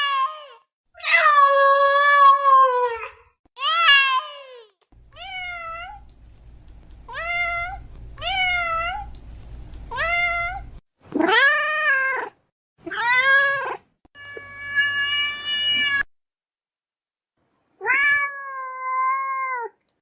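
Domestic cat meowing, about ten separate meows of half a second to two seconds each, rising and falling in pitch, with short silent gaps between them. A faint low hum sits under the meows from about five to eleven seconds in.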